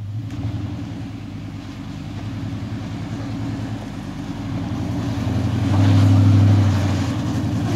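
Toyota Hilux 4x4 pickup's engine running under load as the truck climbs a rutted dirt track and drives past close by. Its steady low note grows louder as the truck approaches and is loudest about six seconds in.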